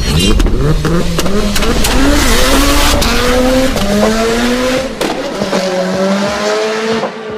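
Car engine accelerating hard through several gear changes, its pitch climbing, dropping back and climbing again, over a loud hiss.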